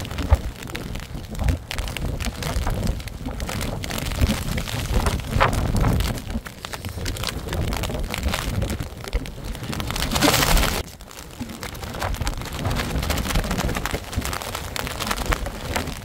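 Strong gusty wind buffeting the microphone in a rainstorm, a rough, uneven rushing with no steady tone. One stronger gust about ten seconds in cuts off suddenly.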